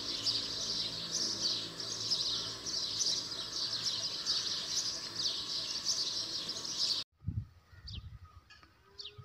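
Dense chorus of many small birds chirping continuously, which cuts off abruptly about seven seconds in. After the cut come a few scattered single bird chirps and some low thumps.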